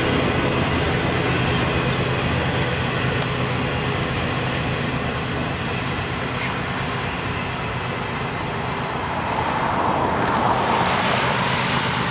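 Circus train's flatcars loaded with trailers rolling past on the rails: a steady rumble with occasional sharp wheel clicks, easing off as the train moves away. About ten seconds in, a road vehicle passes close by and swells over the train's sound.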